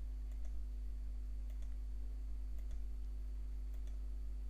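A string of faint computer mouse clicks, about ten in all, as letters are selected one by one with control-click, over a steady low electrical hum.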